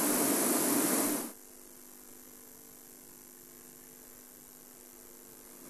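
Steady hiss that cuts off suddenly about a second in, leaving only a faint steady electrical hum.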